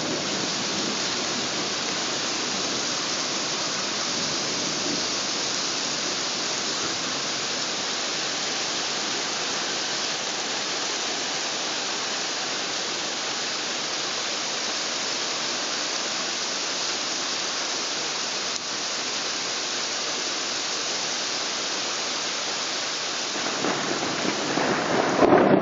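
Heavy rain pouring steadily during a thunderstorm. Near the end a rumble of thunder builds and grows louder.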